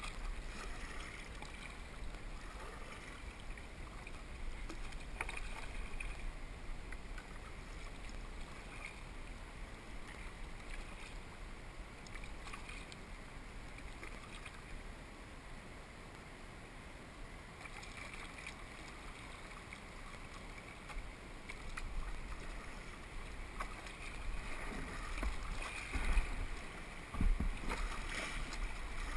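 Kayak being paddled along a river: a steady wash of water with a low wind rumble on the microphone, growing louder with a few bumps near the end.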